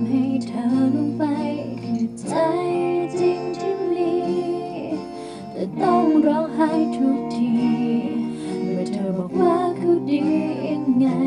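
Thai pop ballad: a lead voice sings phrases over sustained chord accompaniment with guitar, the singing coming in about two seconds in.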